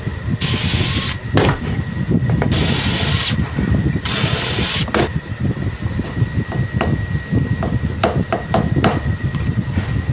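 A high-speed power tool runs in three short bursts of under a second each, whining at a steady pitch. These are followed by a scattered series of sharp knocks, like hammering or tapping on wood.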